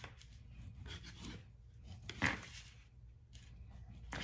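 Knife slicing through soft canned hearts of palm against a paper plate: a few faint, soft cuts, the clearest about two seconds in.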